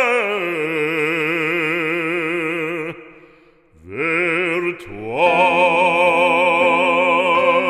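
Operatic singing of a French hymn: a voice holding long notes with wide vibrato. It dips briefly to near quiet a little over three seconds in, then goes on with two more long held notes.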